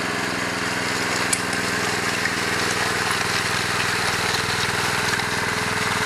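A small engine running at a steady speed under a steady hiss, with a few faint ticks.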